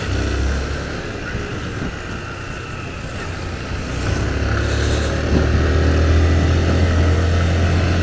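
Honda CG 160 Fan's single-cylinder four-stroke engine running as the motorcycle is ridden at low speed. The engine eases off about two seconds in and picks up again from about four seconds.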